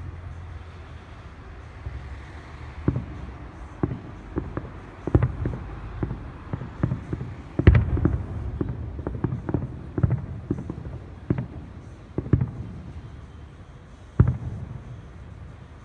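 Aerial fireworks bursting: a run of irregular bangs and crackles over a low rumble, the loudest bang about halfway through and another strong one near the end.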